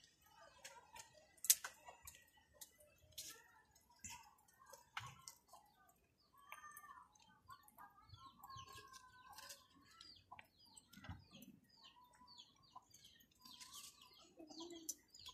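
Faint bird calls, chirping and clucking on and off, with scattered light clicks and taps; the sharpest click comes about a second and a half in.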